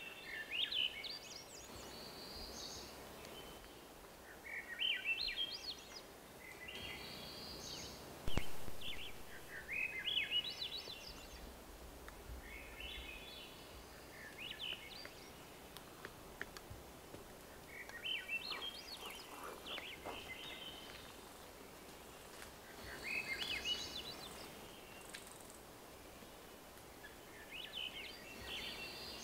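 Swainson's thrush singing: about eight upward-spiralling phrases, each a second or two long and a few seconds apart. A single sharp knock sounds about eight seconds in, louder than the song.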